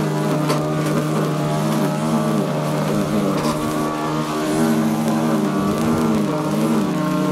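Echo two-stroke string trimmer running at speed, its engine pitch swinging up and down about once a second as the line cuts through overgrown grass and weeds.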